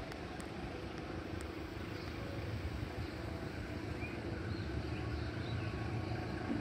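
Distant diesel locomotive approaching, a low rumble slowly growing louder under wind noise on the microphone. A few short bird chirps come in over the second half.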